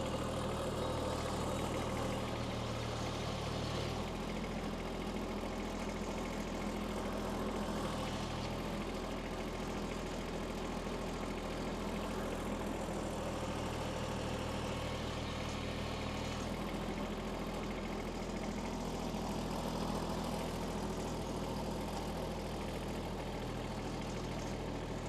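Kubota B2301 compact tractor's three-cylinder diesel engine idling steadily, its low hum shifting slightly about four seconds in and again past the middle.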